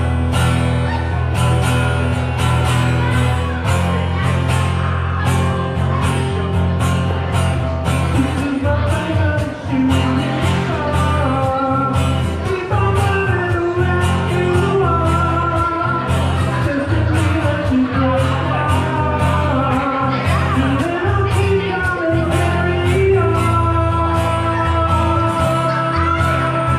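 Live rock band playing a song with a lead singer over bass, guitar and drums, the drums keeping a steady beat.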